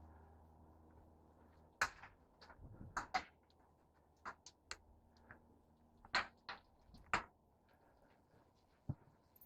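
Scattered sharp clicks and light knocks, a dozen or so at irregular intervals, from hands handling tools and small hardware while fitting lights and brackets on a boat.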